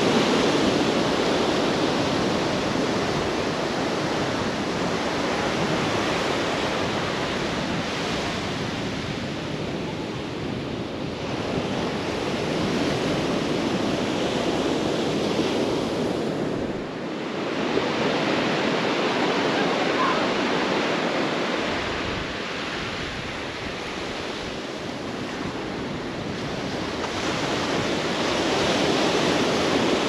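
Ocean surf washing onto a sandy beach, the noise of the waves swelling and fading over several seconds at a time, with wind rumbling on the microphone now and then.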